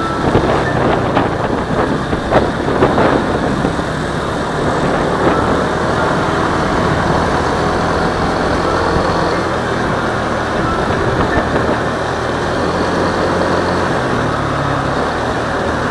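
Yamaha motorcycle running at a steady road speed: a low engine hum under a rush of road and wind noise, with a few short gusts in the first few seconds.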